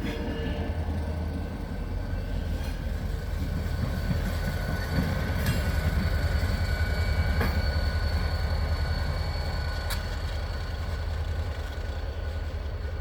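A train rolling past on the rails with a heavy steady rumble, thin high wheel squeal, and a few sharp clicks from the wheels.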